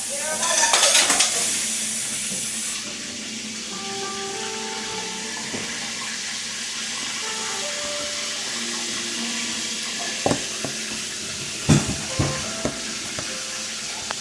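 Flour-battered chicken breasts frying in hot oil in a pan, a steady sizzle, louder for the first second or so. A few sharp knocks come about ten and twelve seconds in.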